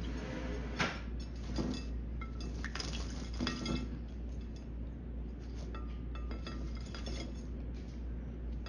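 Green-cheeked conure bathing in a shallow ceramic dinner plate of water: light splashing with many small, irregular clicks and clinks against the plate.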